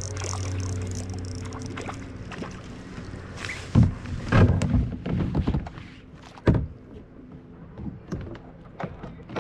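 Hollow knocks and thumps on a kayak hull as gear is handled, a cluster about four to five and a half seconds in and a single one near six and a half, over a steady low hum.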